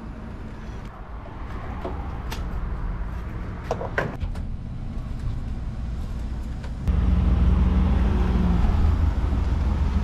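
A few clunks from handling a pickup truck's open door at a fuel pump, then about seven seconds in a Ford F-150 pickup's engine starts and runs with a steady low rumble.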